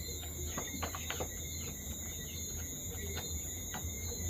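Crickets chirping in a steady high drone, with a low hum and scattered light clicks.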